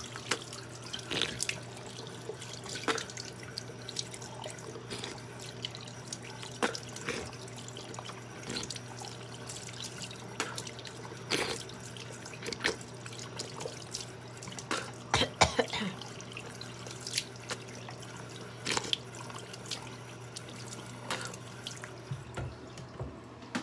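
Bathroom sink tap running into the basin, with many short splashes and drips as the mouth is rinsed at the end of tooth brushing.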